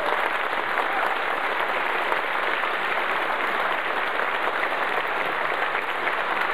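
Steady applause from a large crowd of many hands clapping together.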